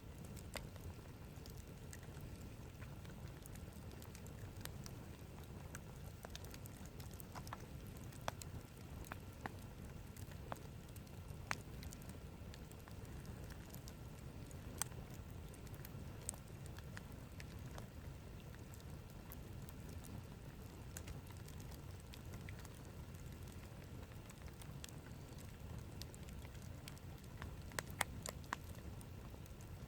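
Wood campfire crackling, with irregular sharp pops every second or so and a quick cluster of pops near the end.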